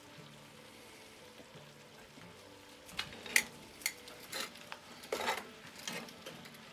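Metal tongs stirring vegetables in a cast-iron Dutch oven, clicking and scraping against the pot from about three seconds in, with one longer scrape a little after five seconds. Under it, the vegetables and reducing red wine sizzle faintly and steadily.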